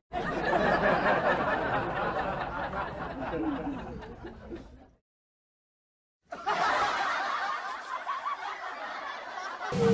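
A group of people laughing, fading out about five seconds in. After a second of dead silence the laughter starts again.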